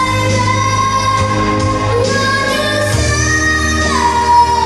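A young girl singing into a microphone over a recorded backing track, holding long notes, with a downward slide onto a lower held note about four seconds in.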